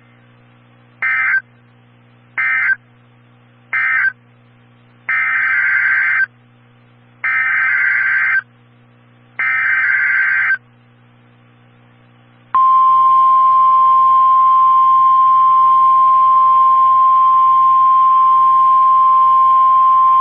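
Emergency Alert System SAME data bursts over NOAA Weather Radio, a harsh digital screech. Three short end-of-message bursts mark the close of the previous alert, then three longer header bursts open the next one. About twelve seconds in, the Weather Radio's single steady 1050 Hz warning alarm tone starts and holds for about nine seconds, signalling that a new alert message follows.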